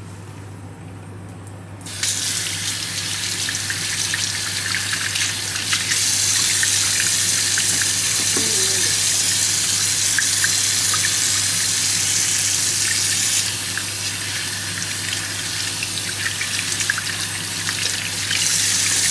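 Water running from a sink tap, with hands and forearms being washed under the stream. The flow starts suddenly about two seconds in, is loudest through the middle as the arms go under it, then eases a little and grows louder again near the end.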